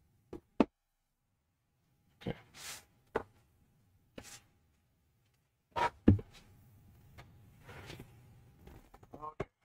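A large folded cardboard game board being handled and unfolded on a wooden table: scattered taps and knocks, a couple of short sliding rustles, and a louder thump about six seconds in.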